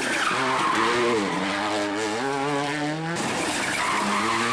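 A World Rally Car engine at full effort on a rally stage. Its revs rise and fall through the gears, with a sudden drop about three seconds in, then climb again.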